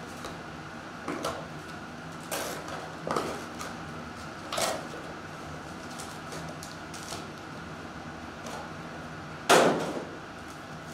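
A cardboard trading-card box being torn open by hand and its foil-wrapped packs handled and set down: a few scattered short knocks and rustles, with one sharp, louder slap near the end.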